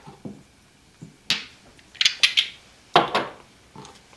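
Kitchenware being handled on a counter: a baking pan being set out and moved, giving a handful of clanks and scrapes, the loudest about three seconds in.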